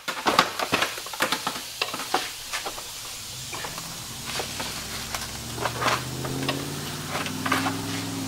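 A pry bar forcing plastic trim loose under a Ford Explorer's front bumper: a run of irregular clicks, scrapes and small cracks. A low steady hum joins about three seconds in.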